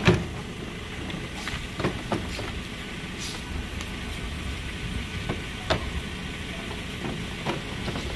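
Used power tools, angle grinders among them, being handled and set down on a pickup truck's bed and tailgate: a few scattered clunks and knocks, the loudest right at the start, over a steady background rumble.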